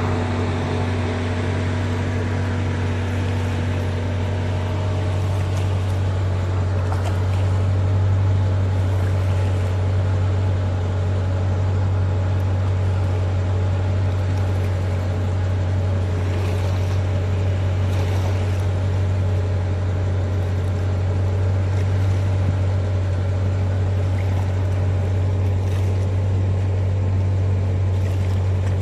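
An engine running steadily at idle: a constant low hum that does not change.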